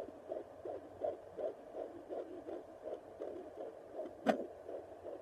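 Fetal heartbeat picked up by a handheld fetal Doppler: a fast, even whooshing pulse, about three beats a second, faint because of the baby's position. There is a single sharp knock about four seconds in as the probe shifts.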